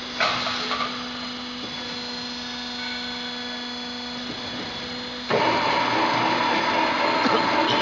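Fan flanging machine running with a steady hum while a galvanized steel fan shell is clanked into place on its rollers. About five seconds in, the rollers start turning the shell, and the sound jumps suddenly to a louder, steady metallic whine.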